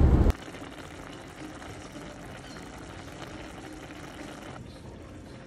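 A moment of car road noise cuts off abruptly, giving way to a pan of ground beef and kidney beans in liquid simmering on the stove with a soft, steady bubbling.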